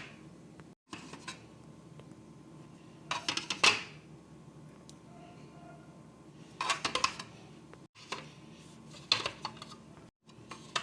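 Dishes and food containers clinking and clattering as they are handled and set down, in three short bursts.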